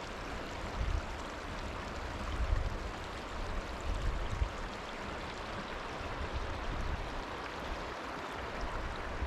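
A creek's water running steadily, with irregular low rumbling on the microphone.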